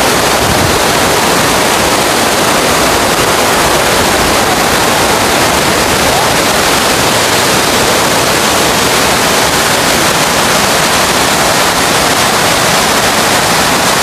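Steady, loud rushing of a waterfall pouring into its pool, an even roar with no breaks.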